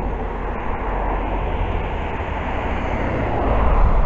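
Wind buffeting a handheld camera's microphone during a run: a loud, steady rushing noise with a heavy low rumble.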